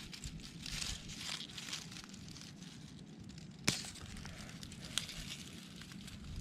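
Close rustling and crinkling handling noise, with two sharp clicks about three and a half and five seconds in.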